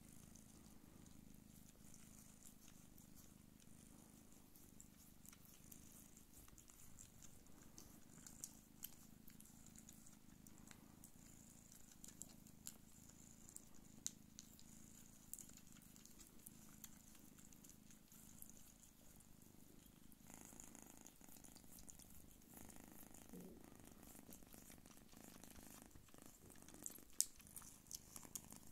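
Faint, steady purring from Don Sphynx cats during nursing, with scattered faint clicks.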